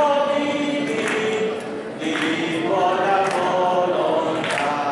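A group of voices singing together in long held notes that step from pitch to pitch, like a choir or a crowd singing a song in unison.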